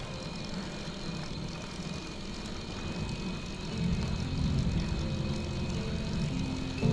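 Steady motorcycle engine drone mixed with wind rushing over the microphone while riding. Background music comes back in about four seconds in.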